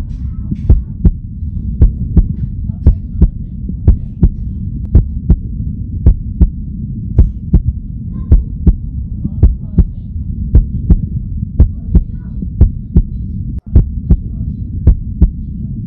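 Pounding heartbeat sound effect over a deep low rumble, beating steadily about two to three times a second, the kind used to build suspense.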